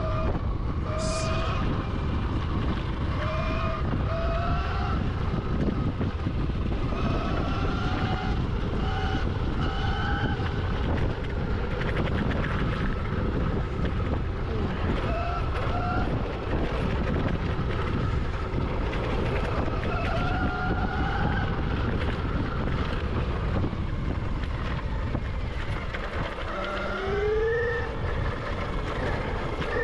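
Electric dirt bike motor whining, its pitch rising and falling with the throttle and climbing sharply near the end as the bike accelerates, over steady wind buffeting and tyre rumble on a dirt trail.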